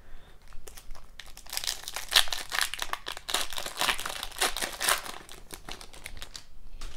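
Foil wrapper of an Upper Deck hockey card pack being torn open and crinkled by hand: a dense run of crackling from about one and a half seconds in until about five seconds, with fainter rustling before and after.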